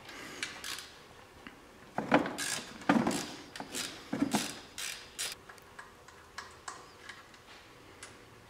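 Socket ratchet clicking in bursts while 13 mm alternator mounting bolts are worked loose, with sharp metal clinks and knocks of the tool. The loudest knocks come about two to four seconds in, then lighter ticks follow.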